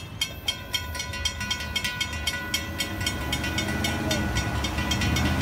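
Railroad grade-crossing warning bell ringing in quick, even strokes while the crossing gates lift after the train has cleared. A low rumble underneath grows louder toward the end.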